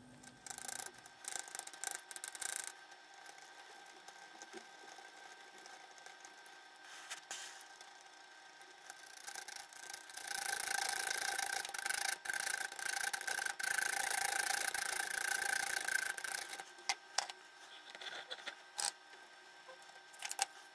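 A hand tool scraping the coating off a tablet's printed circuit board to bare the copper: short bouts of scratching at first, then a steadier, louder stretch of scraping about six seconds long from about ten seconds in, and a few sharp clicks near the end.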